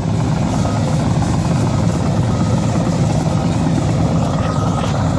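Kobelco SK260 excavator's diesel engine running steadily under load as the machine carries a tree stump, with a faint high whine coming and going partway through.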